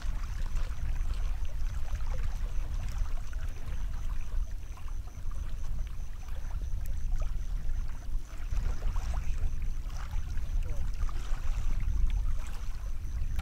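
Wind buffeting the microphone on an open lakeshore, a low uneven rumble, with a faint steady high-pitched tone and a few light ticks over it.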